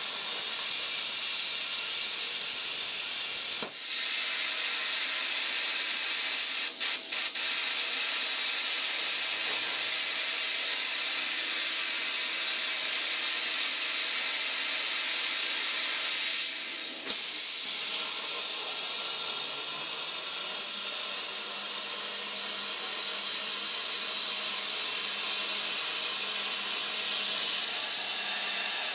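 CNC air plasma cutter torch hissing steadily as it pierces and cuts 11 mm steel plate. The hiss dips briefly about four seconds in and again near seventeen seconds, as the machine stops after the pierce and is restarted. There are a few faint clicks around seven seconds, and a steady low tone joins the hiss from about twenty seconds.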